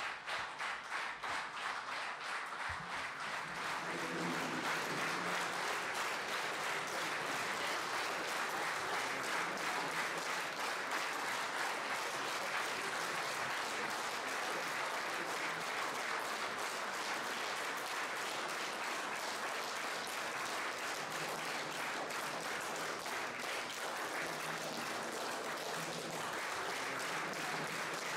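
Audience applauding. It starts as rhythmic clapping in time and after a few seconds fills into steady, dense applause.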